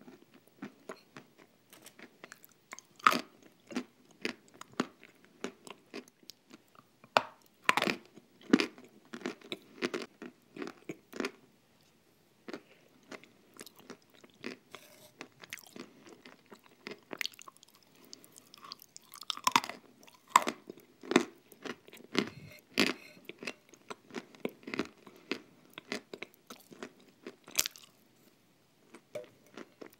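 Close-miked chewing and wet mouth sounds of a thick cream mixed with crumbs, with irregular sharp clicks and crackles. A metal spoon now and then clicks and scrapes against the glass bowl.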